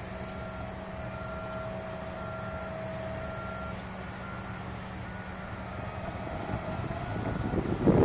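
Backup alarm of a dump truck reversing toward the paving crew's transfer hopper, beeping about once a second over the steady low drone of heavy diesel paving machinery; the noise swells near the end.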